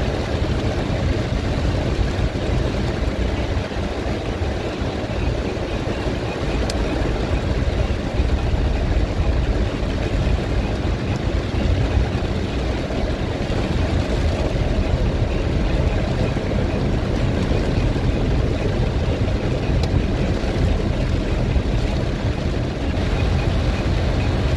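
Heavy rain on a car's roof and windshield, heard from inside the moving car, over a steady low rumble of engine and tyres on the wet road.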